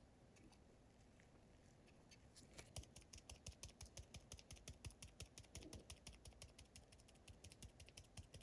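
Fast, even run of light clicks or taps, about six a second, starting about two and a half seconds in after a near-silent start.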